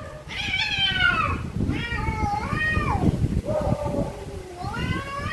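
Cats yowling in an aggressive standoff: about four long, drawn-out yowls in a row, each wavering up and down in pitch.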